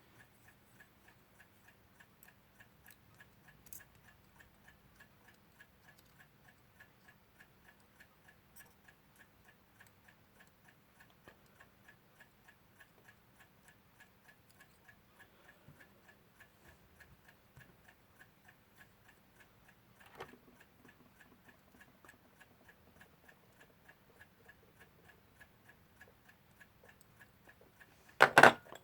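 A mechanical clock ticking steadily and evenly, a few ticks a second. A sharp click comes about two-thirds of the way through, and a short, loud clatter near the end is the loudest sound.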